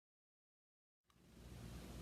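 Dead digital silence, then about a second in faint room tone with a low steady hum fades in.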